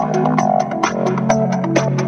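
Background music with a quick steady beat over a held low note, with melody notes on top.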